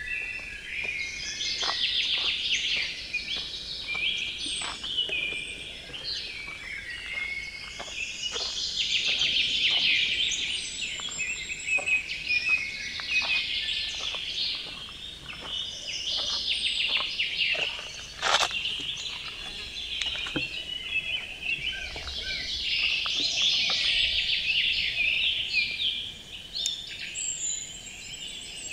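Several songbirds singing in dense, overlapping phrases that swell and fade every few seconds. Underneath are footsteps crunching on a gravel path at walking pace, with one sharper click about two-thirds of the way through.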